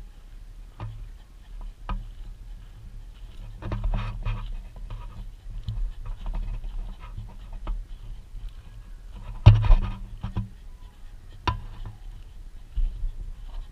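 Large dogs, the nearest a Pakistani Bully Kutta, panting hard close by, with scattered short knocks and one louder bump about nine and a half seconds in.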